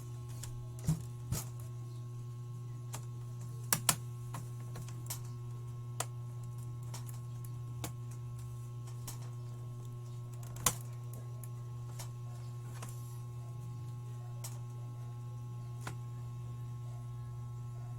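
A handful of sharp, scattered plastic clicks and snaps, loudest about eleven seconds in, as the bottom cover's retaining clips on a Dell Inspiron 5000 series laptop are pried loose by fingernail. A steady low hum runs underneath.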